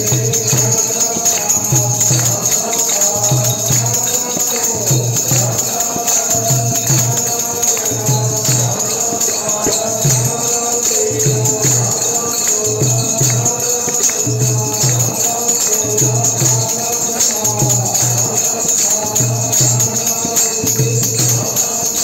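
Devotional bhajan: a lead singer on a microphone with a group singing along, over a dholak drum beating a steady repeating rhythm and a constant jingling of hand percussion.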